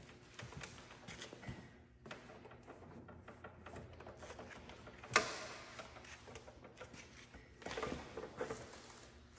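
Blocks of bait being handled and set down on a stainless steel table: soft scrapes and taps, with one sharp knock about five seconds in and a few lighter knocks near the end.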